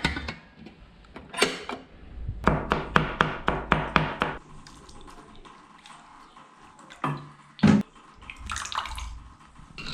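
Kitchen clatter of a pot and dishes with water sounds: a quick run of about ten sharp knocks a few seconds in, and a couple of louder clanks later.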